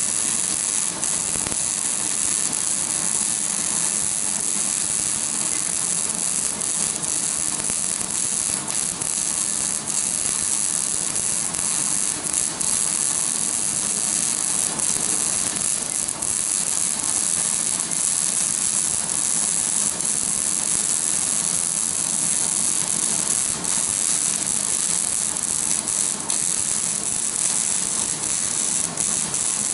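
Electric arc welding: the arc gives a steady, crackling hiss with faint irregular snaps.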